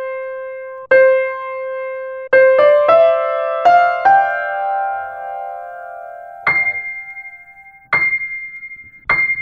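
Single piano notes in the fifth octave, each struck and left to ring and die away. One note is struck twice, then a short rising run of five notes follows, then a much higher note is struck three times.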